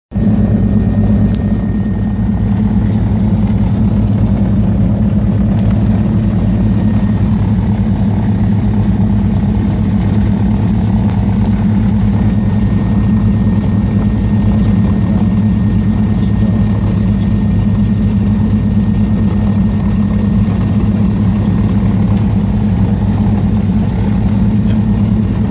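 Cessna 310's twin six-cylinder piston engines and propellers running steadily at taxi power, heard from inside the cabin as an even, unchanging drone.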